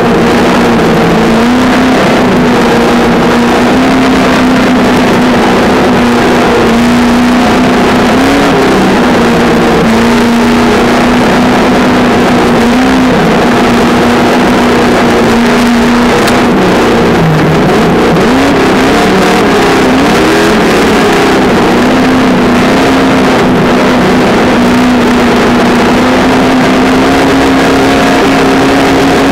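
Traxxas Slash 2WD RC truck's electric motor and drivetrain whining at a steady pitch as it drives, heard from its on-board camera over a constant noisy rush. Around the middle the pitch dips, wobbles, then climbs back and holds steady again.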